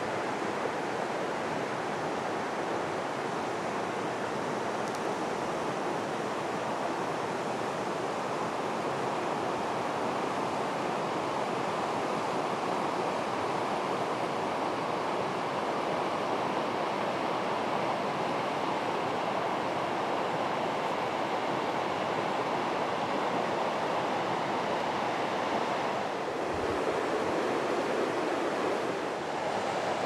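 River water rushing steadily over rocks and shallow riffles, a little louder near the end.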